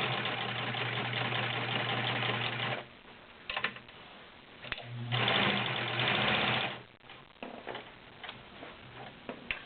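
Vintage all-metal Kenmore model 1516 sewing machine stitching through 12 layers of cotton with a size 16 needle. It runs steadily for about three seconds, stops, and then runs again for nearly two seconds, with a few light clicks between and after the runs.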